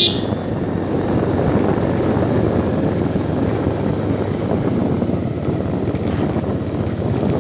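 Motorcycle engine running steadily while being ridden up a dirt road, with wind rushing over the microphone.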